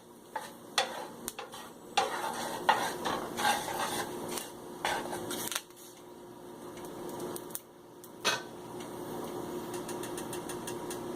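Curry leaves and dried red chilies frying in hot oil in a frying pan, stirred with a utensil: irregular scrapes and knocks against the pan over a steady sizzle as the leaves turn brown and crisp.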